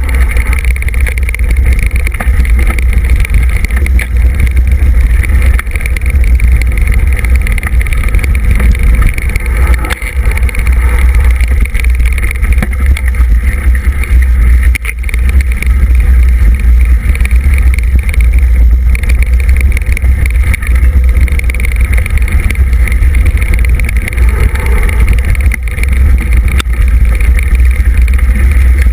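Mountain bike riding along a dirt trail, heard through a handlebar-mounted camera: a loud, steady low rumble of wind and vibration on the microphone.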